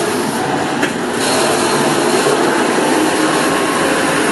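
Small self-loading concrete mixer truck running: a loud, steady machine noise with no letup, and a brief click about a second in.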